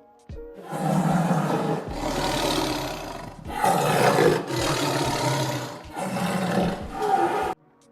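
Big cat roaring: about five long roars back to back, cutting off suddenly near the end.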